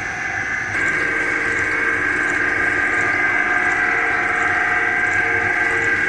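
Single-screw snack pellet extruder running: a steady machine hum with a continuous high whine. It gets louder about a second in.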